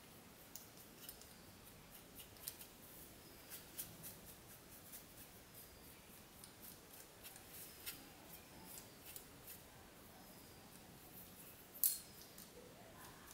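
Bristles of a small paintbrush scratching and flicking over the blades of an AZOM Exigo v4 laptop's cooling fan and its heat-sink, making a string of faint, dry, irregular ticks. One sharper click comes near the end.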